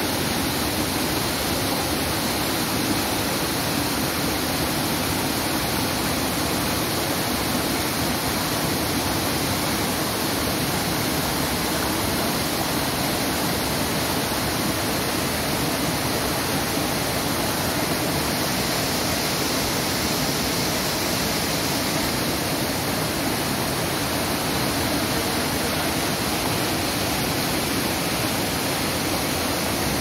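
Steady rushing of a swollen, muddy stream pouring over rock ledges and small cascades, churning into white water.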